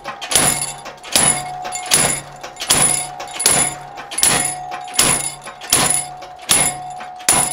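Steady, evenly spaced hammer blows, about ten in all, one every three-quarters of a second or so, driving a spring tenoning swage that closes on a red-hot bar to forge a round tenon. Each blow is a sharp clang that leaves a ringing tone behind it.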